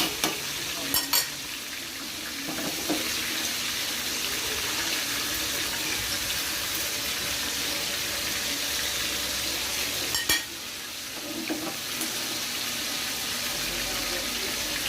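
Chicken frying in hot oil with a steady sizzle, and a few sharp clicks of a utensil against the pan about a second in and again about ten seconds in.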